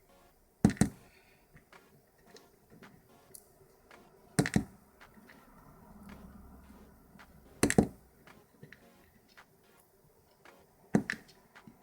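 Small metal lock parts of a disassembled Euro cylinder clicking against a hard surface as they are handled. The clicks come in four brief, sharp pairs, about three seconds apart.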